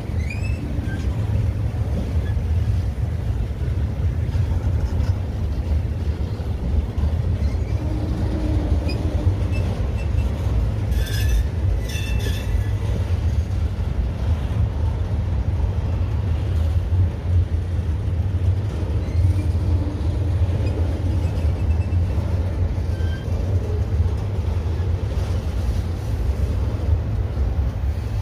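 Union Pacific manifest freight train's autorack cars and boxcars rolling past close by, a steady low rumble of steel wheels on rail, with two sharp clanks about eleven and twelve seconds in.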